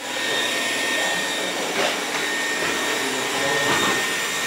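Cecotec Conga 4690 robot vacuum cleaner running: a steady fan noise with a thin, high, constant whine.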